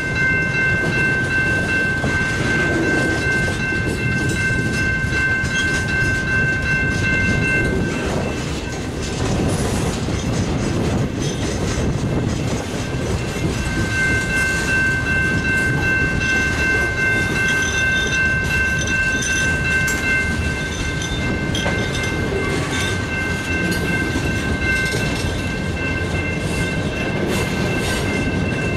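Freight cars rolling past at close range, with a steady rumble and wheel clatter on the rails. A steady high-pitched whine runs through the first eight seconds and again from about halfway in to the end.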